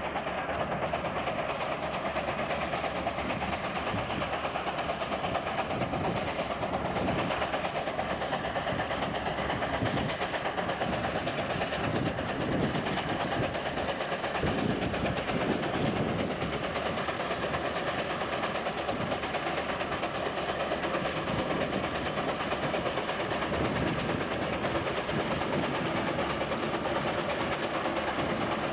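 1914 Rumely 20-60 steam tractor working under load as it pulls an eight-bottom plow, giving a steady, dense mechanical clatter with exhaust and gear knocks that stand out in the middle.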